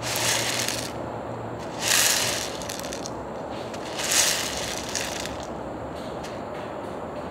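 A paper cup of Nissin Curry Meshi instant rice rustling and rattling as it is turned in the hands, the dry rice shifting inside. It comes in three short swells: near the start, about two seconds in and about four seconds in.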